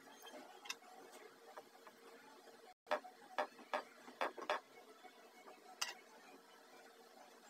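Metal fork tines clicking against a ceramic plate while pressing down the edges of a rolled bread slice to seal it: a run of sharp clicks near the middle and one more a couple of seconds later.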